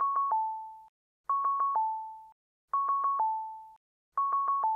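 Low-battery warning tone of a Cochlear Osia 2 sound processor: an electronic four-note signal, three quick notes at one pitch and then a lower held note that fades. It repeats about every one and a half seconds, signalling that the battery is flat and needs changing.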